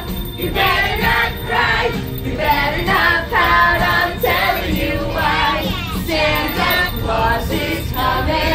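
A group of passengers, children and adults, singing a Christmas song together, led by a woman's voice, over a low steady rumble.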